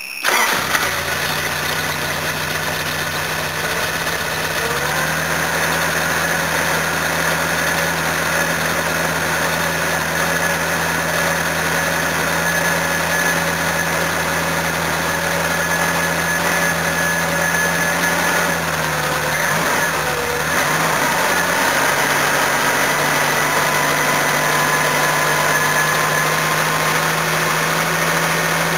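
Carburetted petrol engine of a Toyota HiAce van idling steadily from cold, its carburettor bowl filling to level after the engine was flooded with fuel. About two-thirds of the way through the idle briefly wavers, then steadies again.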